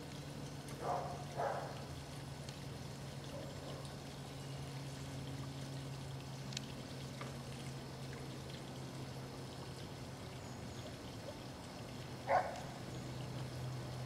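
Steady trickle of water from a small garden pond's water feature. Three short squeaks cut through it, two close together about a second in and a louder one near the end.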